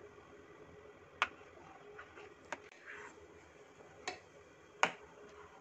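A plastic spoon stirring boiling milk in a metal kadai, clicking lightly against the pan four times at uneven intervals over a faint steady background.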